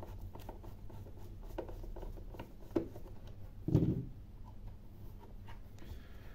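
Screwdriver turning a screw out of the plastic housing of an HTRC P30 battery charger, with small irregular scraping clicks. A louder dull knock comes a little before four seconds in, as the screwdriver is laid down on the silicone work mat.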